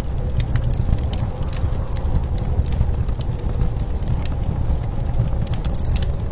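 Wood fire crackling, with scattered sharp pops and snaps, over a steady deep rumble of blizzard wind.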